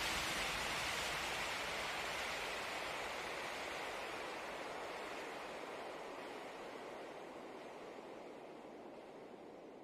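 Steady rushing of creek water, fading out gradually until it is faint near the end.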